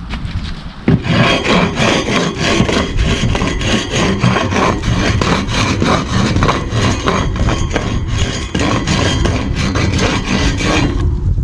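Fast, rhythmic back-and-forth rasping strokes of a hand tool, starting about a second in and stopping just before the end.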